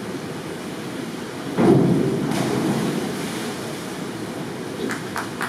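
Springboard diver entering the pool water head-first: a sudden splash about a second and a half in that fades over a second or two, over steady background noise.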